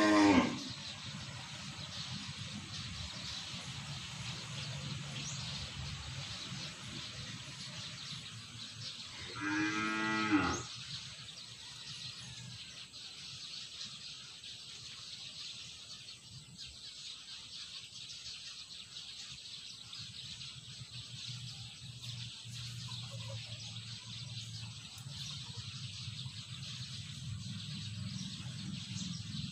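A farm animal calling twice with a long, wavering, lowing call of about a second each: once at the start and again about ten seconds in, over a steady high hiss.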